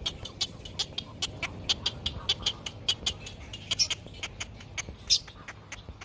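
Egret nestlings begging at the nest: a rapid, irregular chatter of short high clicking calls, about six or seven a second, with two louder rasping squawks a little past the middle.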